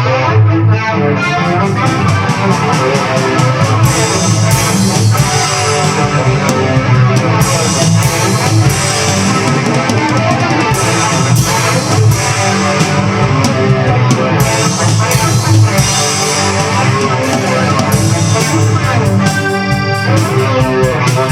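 Multitrack rock mix playing back: guitars over bass and drums, the drums slightly reverbed. The mix runs hot enough to redline in spots, with drums the speaker finds too loud against the guitars.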